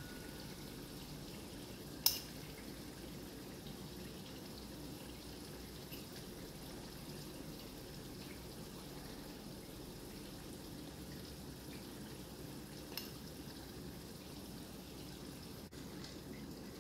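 A metal serving spoon clinking against cookware: one sharp click about two seconds in and a fainter one near the thirteen-second mark, over a steady low background hum.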